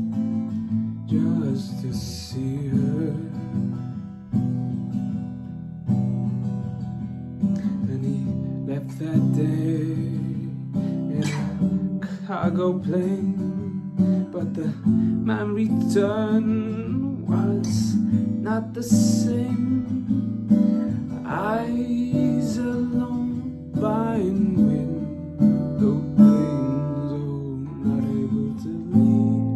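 Acoustic guitar strummed in chords, with a man singing over it.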